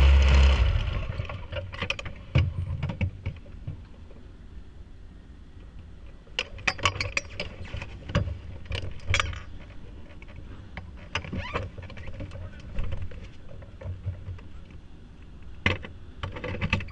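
Formula 2000 race car's engine running, then cut off about half a second in, the sound dying away over the next second; after that, scattered sharp clicks and knocks.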